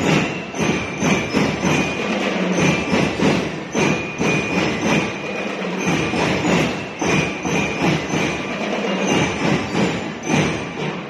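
School drum and lyre band playing: drums beating a steady march rhythm under held, ringing bell-lyre notes.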